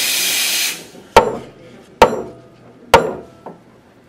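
Espresso machine steam wand hissing briefly as it is purged, cutting off about a second in. Then a stainless steel milk pitcher of freshly steamed milk is knocked on the counter three times, about a second apart, to settle the foam.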